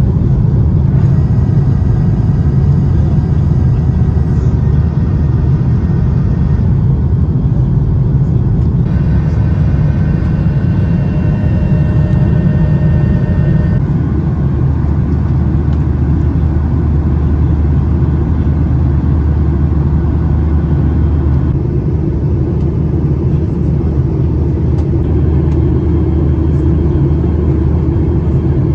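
Boeing 737-800 cabin noise in flight: the steady low rumble of the CFM56 engines and airflow, heard from a window seat over the wing. Faint high tones come and go in the first half.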